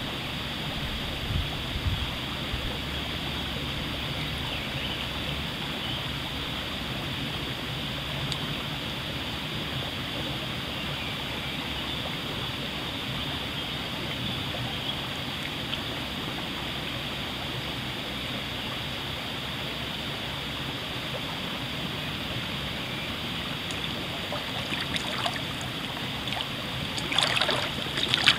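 Shallow stream running steadily. Near the end, water sloshes and splashes as a person wading in rubber chest waders moves through it.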